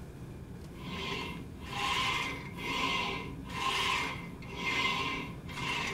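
A small plate's base sliding by hand back and forth along a track, rubbing with a rasping sound that swells about once a second, six strokes in all.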